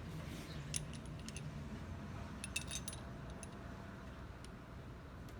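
Small metal parts and tools clinking and jingling as they are handled, in a few short clusters of light clinks, most of them in the first three seconds.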